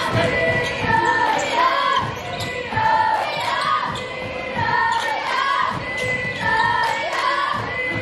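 A basketball is dribbled on a hardwood gym floor with repeated bounces, while basketball sneakers squeak in short high squeals as players cut and shuffle on the court.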